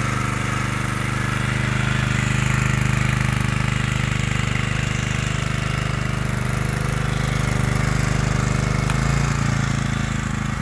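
Senci SC1250E portable generator's small single-cylinder OHV four-stroke petrol engine running steadily at constant speed. About nine seconds in there is a click, and the engine note shifts slightly just after it.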